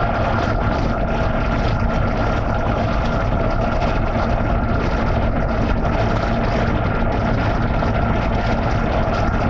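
1990 Jeep Cherokee engine idling steadily in the engine bay with the A/C compressor clutch engaged, a steady whine sitting over the engine drone.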